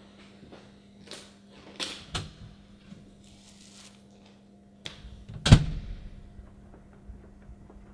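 A handful of sharp clicks and knocks over a steady low hum, the loudest knock about five and a half seconds in.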